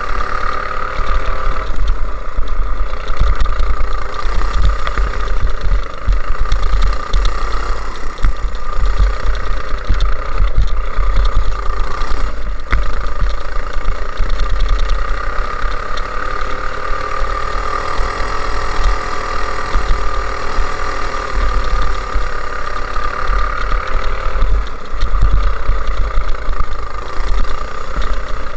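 Go-kart engine running flat out around a track, its pitch rising and falling with the throttle through the corners, with a brief lift off the throttle about twelve seconds in. A heavy, uneven low rumble runs underneath.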